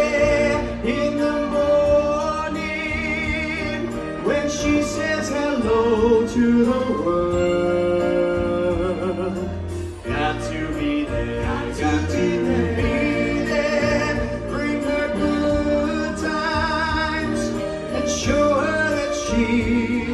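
A man singing live into a microphone over amplified backing music, his held notes wavering with vibrato above sustained chords, a bass line and a steady beat.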